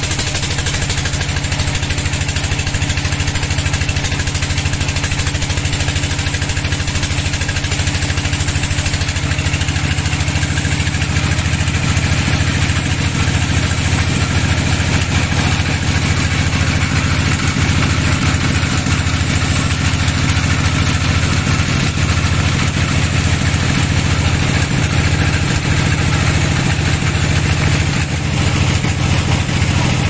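A heavy engine idling steadily.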